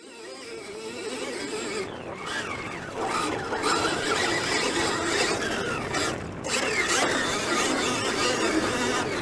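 Motocross bike engine revving hard and climbing in pitch, easing off briefly at about two, three and six seconds in, as with gear changes or throttle lifts.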